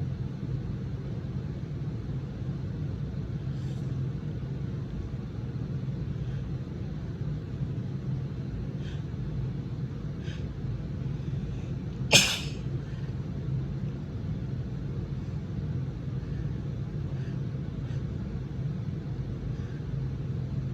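A woman's single sharp, loud sneeze about twelve seconds in, which she puts down to allergies, over a steady low rumble.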